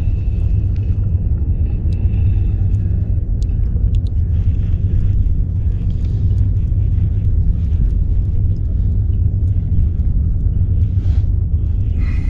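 Wind buffeting the camera microphone: a steady low rumble, with a few faint clicks in the first seconds.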